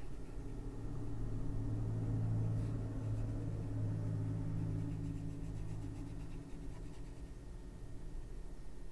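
Soft brushing of a water brush tip over watercolour pencil on paper. Under it is a low steady hum that grows louder over the first couple of seconds and fades away after about six seconds.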